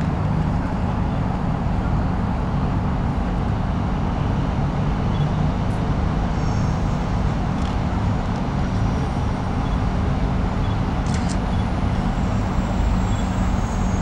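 Steady low rumble of city traffic noise, with a couple of faint clicks and high tones.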